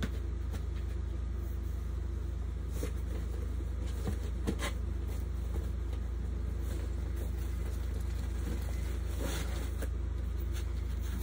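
Steady low background hum throughout, with a few soft clacks of plastic VHS tape cases being handled and set down.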